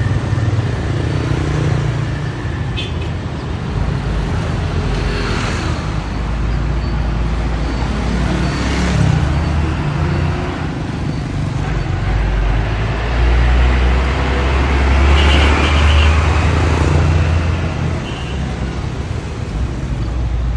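Road traffic of motorbikes and cars passing, with a Hino cargo truck's diesel engine the loudest. Its deep low engine sound builds in the second half as the truck goes by.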